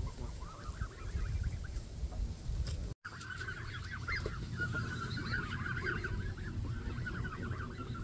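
A flock of Canada geese calling: many short, overlapping honks and clucks, sparse at first and much thicker after a brief dropout about three seconds in.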